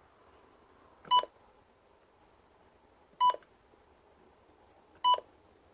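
Three short, identical electronic beeps from a radio receiver, about two seconds apart, each a single steady high tone.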